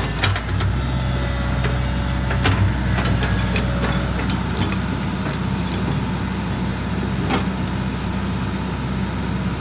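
Heavy construction vehicle's engine running steadily at a low rumble, with scattered metallic knocks and clanks over it.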